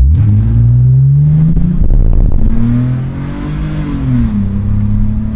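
BMW E46 320Ci straight-six with its rear muffler removed, accelerating: the engine note climbs, drops at a gear change about two seconds in, rises and falls again, then settles to a steady cruise.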